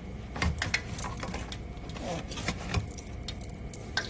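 Phone being handled and set down: scattered faint clicks, knocks and rubbing over a low steady hum.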